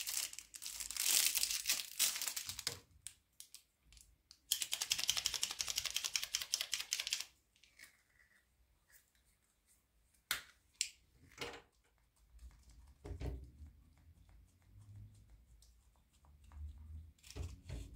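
Plastic packaging on a grout pen being torn and crinkled in two bursts of a few seconds each, followed by a few light clicks.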